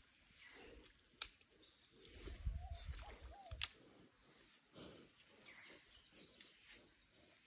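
Quiet outdoor ambience with a bird giving a few short, low calls. A couple of sharp clicks and a brief low rumble come a little past two seconds in.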